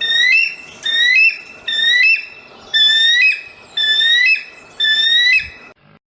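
Eagle calling: a series of high whistled notes, each rising and then stepping up, about one a second, stopping abruptly near the end.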